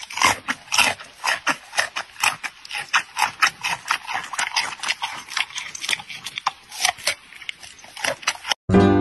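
Giant panda chewing a raw carrot: a run of crisp, wet crunches, about three or four a second.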